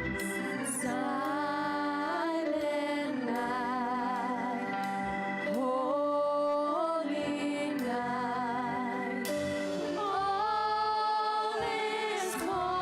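Worship song being sung: a voice with vibrato over sustained keyboard or organ chords.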